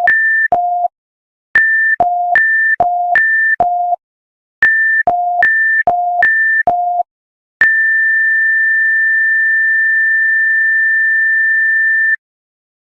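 Emergency alert system test tones: a high and a low electronic beep alternating about three times a second, in groups of about two and a half seconds with short gaps between, then one long steady high tone of about four and a half seconds that cuts off suddenly.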